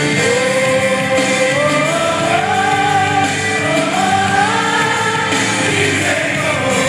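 Gospel song playing loud: a singer holds long notes that rise and fall over full band accompaniment.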